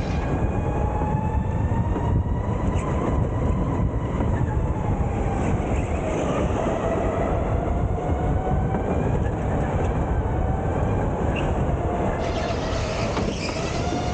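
Electric go-kart motor whining, its pitch rising and falling with speed through the corners, over a steady rumble of tyres and chassis on the track, heard from on board the kart.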